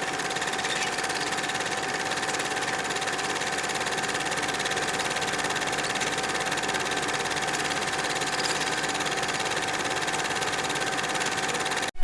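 Film projector running: a steady, rapid mechanical clatter with a constant hum, which stops abruptly near the end.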